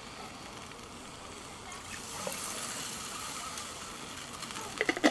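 Stock being poured into a cast-iron Dutch oven of braising ox cheeks: a steady splashing pour begins about two seconds in. A few sharp clinks come near the end.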